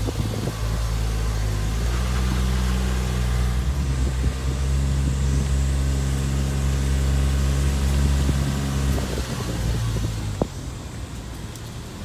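Car engine running as the car drives, heard from inside the cabin: a steady low drone that eases off about nine seconds in.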